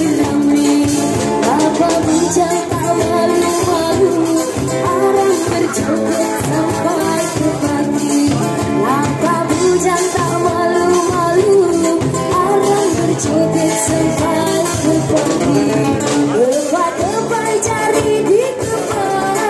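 Live busker band playing an upbeat joget song: a singer over guitar and a drum kit keeping a steady dance beat.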